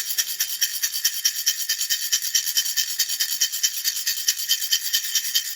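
Baby rattle shaken steadily in a fast, even rhythm of about eight shakes a second, its beads giving a bright, hissing rattle.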